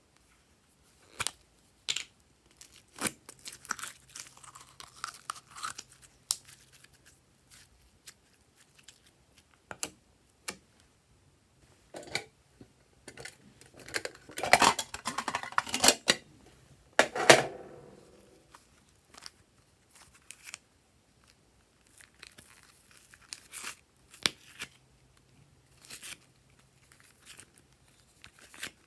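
Slime being handled and mixed by hand: scattered clicks and pops, with a dense stretch of crackling, tearing noise about halfway through.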